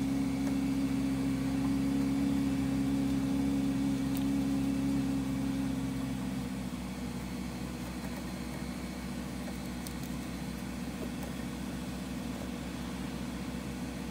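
A motor running steadily with a low, even hum, dropping slightly in level about six seconds in.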